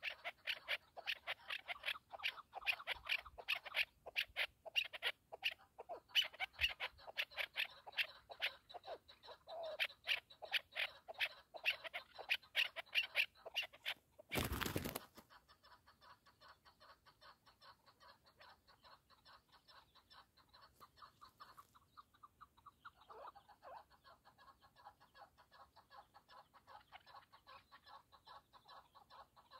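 Chukar partridge calling: a fast, rhythmic run of clucking notes for about the first fourteen seconds, then a brief loud burst of noise, after which fainter calling continues.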